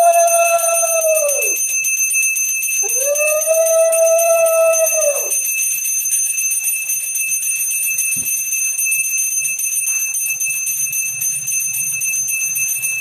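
A conch shell blown twice in long, steady notes whose pitch drops as each one ends, over a handbell rung continuously, as at a Hindu puja. A single low knock about eight seconds in.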